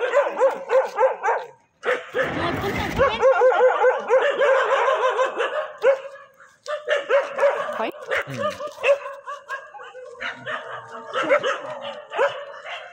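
Dog barking over and over in fast runs of short barks, with a brief rustling noise about two seconds in and a short pause around six seconds.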